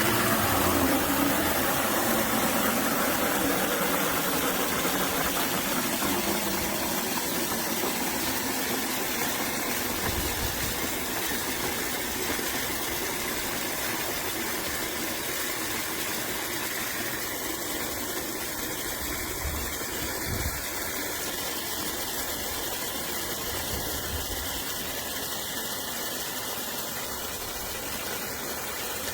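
Water from a garden hose running through a flow meter into a bucket: a steady rush that starts suddenly and grows slightly quieter as the bucket fills.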